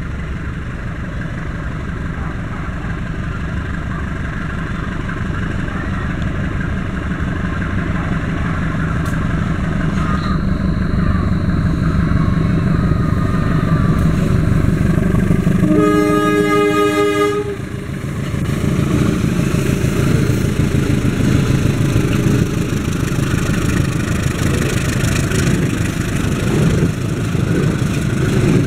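A CC 203 diesel-electric locomotive (GE, V12 7FDL engine) runs past at the head of a passenger train, its engine rumble growing louder as it approaches. About halfway through it sounds its horn once for about a second and a half, then the coaches roll by with wheel and rail noise.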